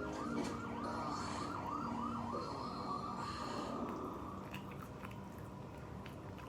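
Siren sound effect from a cartoon playing on a television: a fast, repeating yelping wail that fades out about four seconds in.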